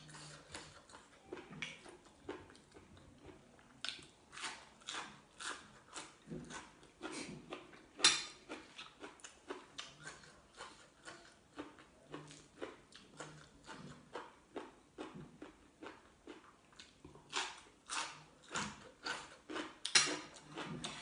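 A person chewing crunchy raw vegetables close to the microphone: a steady run of crunches about three a second, with a sharper crunch about eight seconds in.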